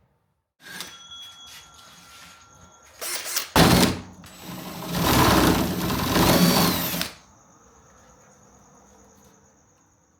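Handheld power tool, most likely a sander, whining as it runs and grinding against coated form-ply camper walls to rough up the surface, loudest from about four to seven seconds in, then running on faintly with a thin high whine.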